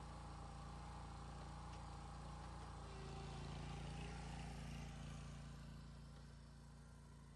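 Faint engine hum that swells a few seconds in, then fades.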